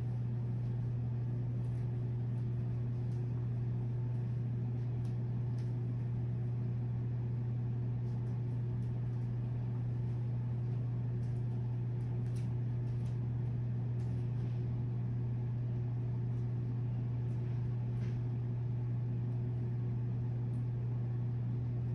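A steady low hum of room background noise that does not change, with a few faint ticks now and then.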